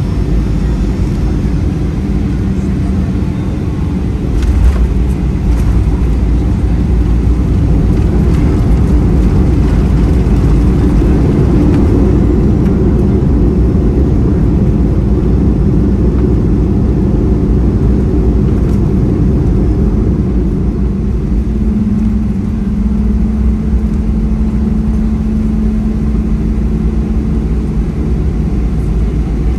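Boeing 737-400 cabin noise: a loud, steady rush of its CFM56 jet engines and airflow, heard from inside the cabin. It grows louder about four seconds in, with a few short knocks, and a steady hum joins in the second half.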